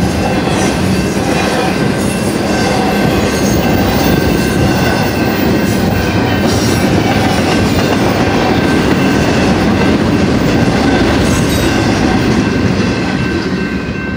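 Double-stack intermodal well cars of a freight train rolling past at speed, steel wheels running loudly on the rails, with the last cars clearing near the end. A steady ringing from the grade-crossing bell carries on behind it.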